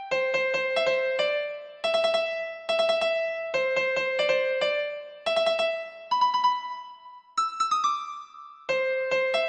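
Karaoke guide melody: the song's vocal line played one note at a time on an electronic piano tone, with runs of quick repeated notes and a few longer held notes.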